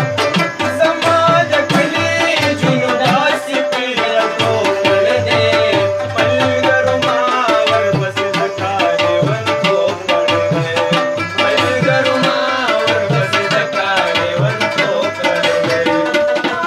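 Live Pashto folk music: tabla drumming a fast, steady rhythm under a melody instrument that holds a long note and plays wavering phrases above it.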